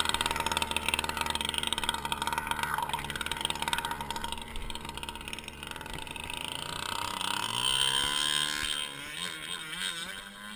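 Petrol engine of a model speedboat running hard, with water rushing and splashing around the hull. In the last few seconds it is heard from farther off, its pitch rising and falling as the boat skips across the waves.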